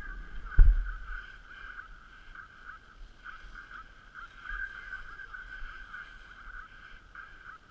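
Sliding over packed snow on a ski slope, heard on a GoPro: a steady, wavering scraping hiss with a low rumble beneath it. A single sharp knock comes about half a second in.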